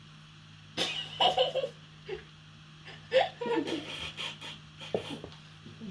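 Young girls laughing and giggling in short bursts, about a second in and again in a longer run from about three to five seconds in.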